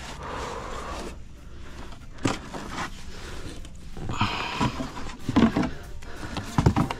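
Scattered handling noises, scrapes and small knocks, with a few louder knocks in the second half.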